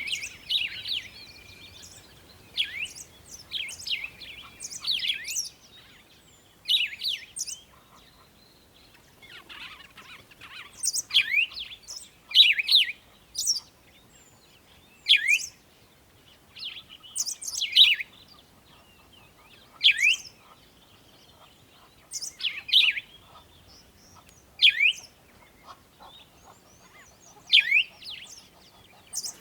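Bird chirping: repeated short, sharply falling high notes in quick clusters, about one cluster every two seconds.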